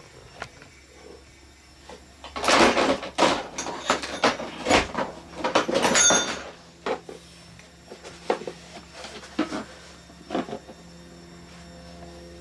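Hard tools clattering and knocking, as when rummaging through drill bits in a case or box, in a dense run of sharp clacks for about four seconds, then a few lighter clicks. A faint steady hum begins about halfway through.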